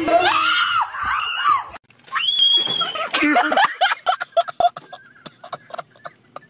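A person's loud, high-pitched scream held for under a second, then a quick string of short sharp cries and knocks that fade away.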